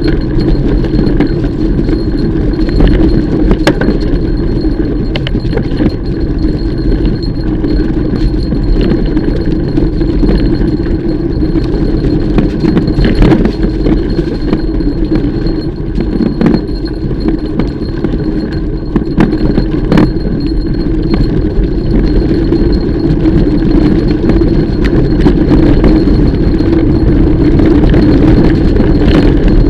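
Mountain bike rolling over a dirt trail: a continuous rumble of tyres and wind, with frequent rattles, clinks and knocks from the bike as it goes over bumps.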